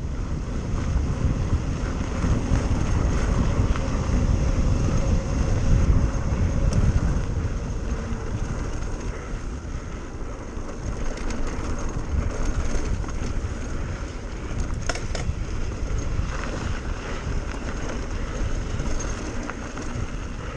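Wind buffeting the microphone and bike tyres rumbling over a dirt trail during a fast mountain-bike descent, with a few sharp clicks and rattles from the bike.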